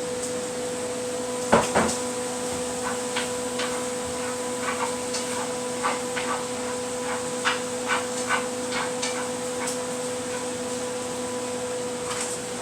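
Knocks and clicks of bite-sized turkey pieces and a utensil against a pan as the meat is added, with a sharp double knock about a second and a half in. A steady hum runs underneath.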